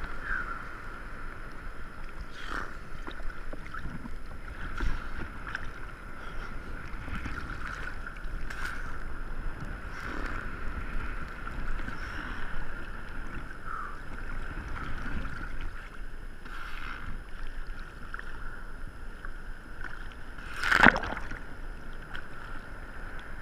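Seawater sloshing and lapping against a waterproof action-camera housing riding the swell at the surface, with scattered splashes and one louder splash near the end.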